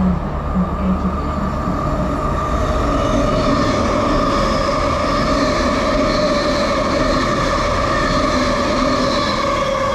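A Transperth electric multiple-unit train running through the station at speed without stopping: a loud, steady rush of wheels on rail and air, with a steady high whine over it from about three seconds in.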